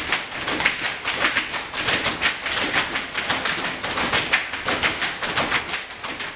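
Many dancers' feet stepping and stamping on a hard tiled floor in a dense, irregular patter of taps and thuds. It cuts off suddenly at the end.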